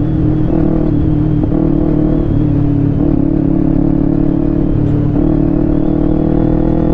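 Kawasaki Ninja 250 FI's parallel-twin engine running at a steady cruise, its note shifting slightly in pitch, over a wide hiss of wind and road noise.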